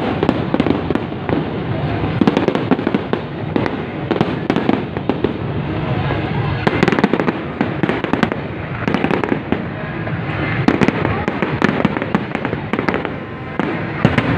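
Dense aerial fireworks display: many sharp bangs of shells bursting in quick succession over a continuous crackle, thickest in the middle, with a brief lull near the end.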